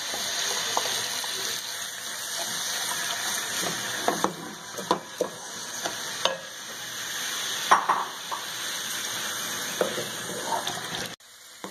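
Sliced onions sizzling in hot oil in a metal pot, stirred with a spatula that scrapes and knocks against the pot now and then. The sizzle drops away suddenly near the end.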